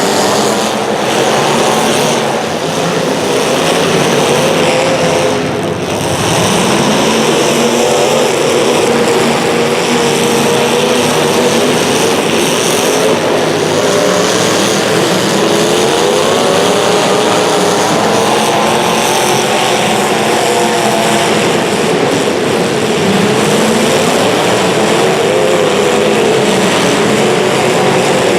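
Several racing engines running at high revs together, their pitches rising and falling over and over as the vehicles lap the track.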